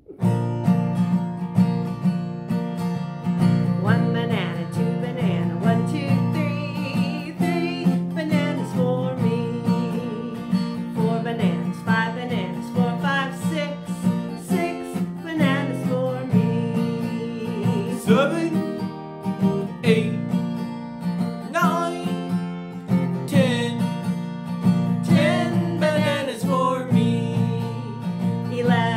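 Acoustic guitar strummed steadily with a woman singing over it, a children's counting song.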